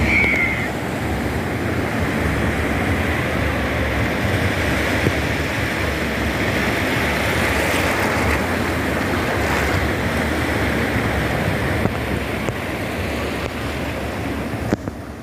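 Small ocean waves breaking and washing over a shallow sandy beach: a steady rush of surf and foam.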